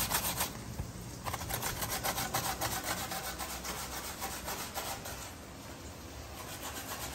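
Peeled raw green mango being grated on a stainless-steel box grater: a run of rasping strokes of the fruit against the grater's holes, with two brief lulls.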